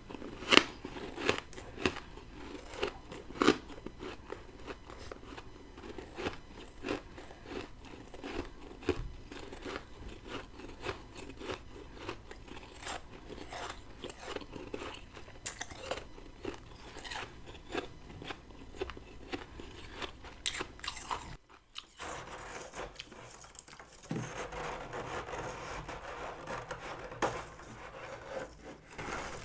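Close-up biting and chewing of freezer frost: many crisp, irregular crunches, a brief pause a little past two-thirds through, then a few seconds of denser crunching.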